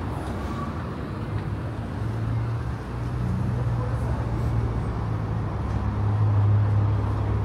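Street traffic with a motor vehicle's engine running close by; its low hum swells from about two seconds in and is loudest near the end.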